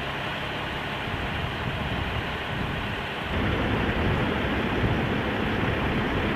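Heavy crane truck's engine running steadily under a rumble of wind on the microphone, growing louder about three seconds in.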